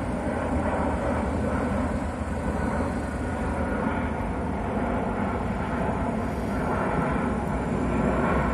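Jet airliner flying low overhead, its engines a steady rumbling noise, with road traffic beneath it.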